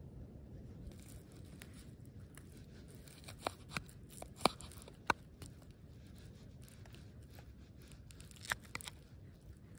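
A knife cutting through fried eggs and a ham steak on a wooden plate: a cluster of sharp clicks and scrapes as the blade meets the plate about three to five seconds in, and another near the end, over a low steady rumble.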